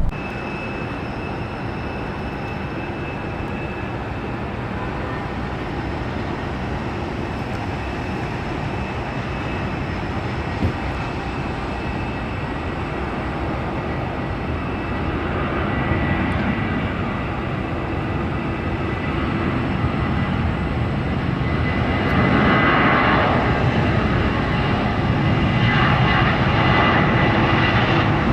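Jet airliner engines, a steady broad rumble with a faint high whine, growing louder in the last third as the aircraft comes closer.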